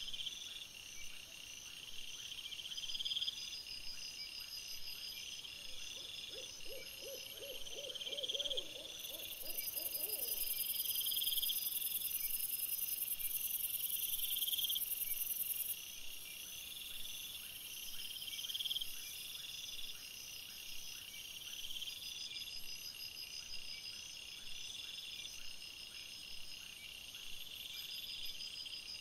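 Night outdoor ambience picked up by a trail camera: high, insect-like chirping trills repeat throughout. A short run of quick, low pulsing calls comes about six to ten seconds in.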